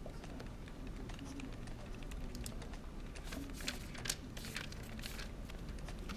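A paper notebook being handled, with short, crisp paper ticks and rustles that grow busier about halfway through, over a steady low room hum.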